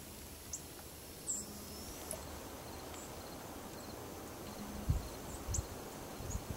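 Faint outdoor marsh ambience: short high chirps about once a second over a faint, steady insect trill. A couple of brief low thumps come near the end.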